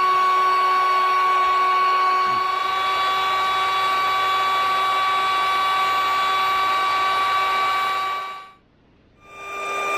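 A small electric motor running with a steady, high-pitched whine; it stops about eight and a half seconds in and starts again less than a second later.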